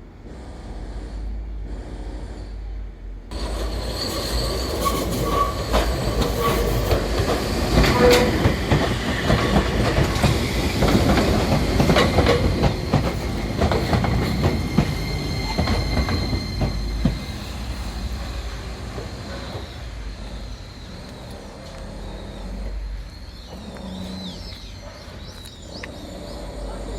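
Enoden (Enoshima Electric Railway) electric train passing close by, wheels clicking over the rail joints with a high wheel squeal. It swells a few seconds in, is loudest through the middle, then fades away.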